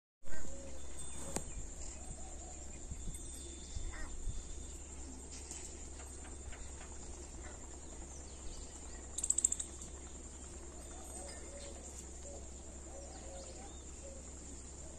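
Outdoor ambience: a steady high insect buzz under faint distant bird calls, with a low rumble of wind or handling on the microphone. A sharp click comes just after a second in, and a brief rapid chatter about nine seconds in.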